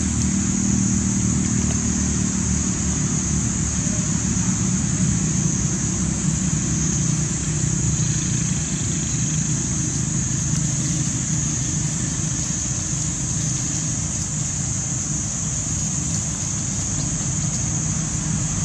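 Steady outdoor background noise: a continuous low rumble together with a constant high-pitched hiss, unchanging throughout.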